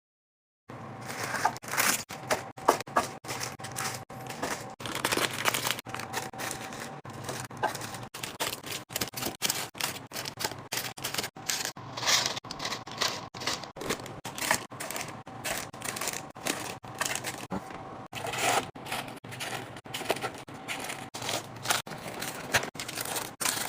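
Packaging and containers being handled: a dense run of clicks, taps and rustles that starts abruptly about a second in, over a faint steady hum.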